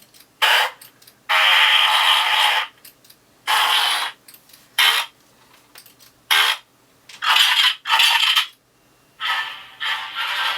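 Fart sound effects played one after another through the small built-in speaker of a homemade Arduino E-11 blaster prop. There are about seven bursts of uneven length, some brief and some over a second long, thin and tinny with no bass.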